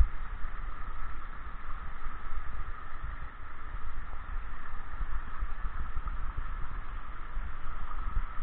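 Mountain stream current recorded with the camera underwater: a steady rush of water with low, uneven rumbling.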